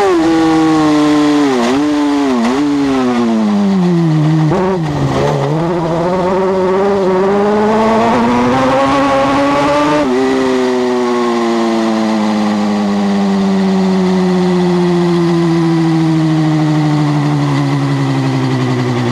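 Super buggy's engine heard from on board, loud throughout. Its pitch falls with two quick dips, bottoms out about five seconds in, climbs, jumps up abruptly about halfway through, then winds slowly down.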